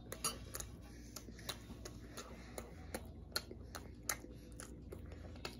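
A person eating beef stew: faint small clicks and ticks of mouth and utensil, a couple a second at irregular spacing, over a low steady room hum.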